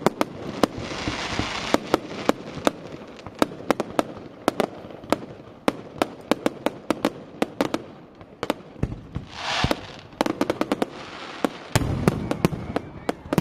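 Fireworks display: a fast, irregular string of sharp bangs from bursting aerial shells, with stretches of hiss about a second in and again around nine to ten seconds in, and a deeper, heavier bang near the end.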